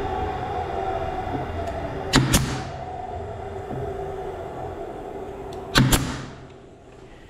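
Steady hum of workshop machinery, with two sharp double knocks about three and a half seconds apart; the hum fades away near the end.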